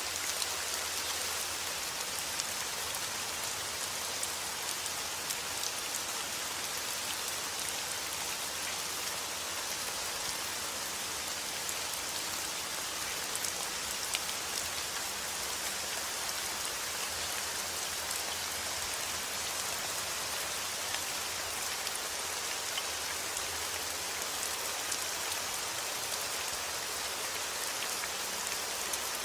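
Heavy rain falling outdoors: a steady, even hiss of rain with scattered individual drops ticking on surfaces.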